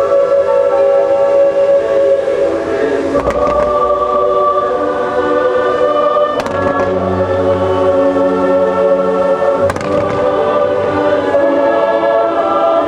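A choir sings long, sustained chords over orchestral show music. Sharp firework bangs cut in three times, a few seconds apart, as fireworks begin launching.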